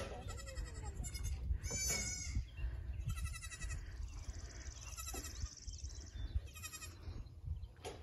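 Goats bleating, a string of quavering calls one every second or two.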